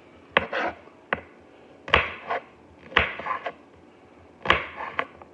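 Large kitchen knife chopping bell peppers on a cutting board: about six sharp knocks at uneven intervals, each followed by a short rasp of the blade through the pepper.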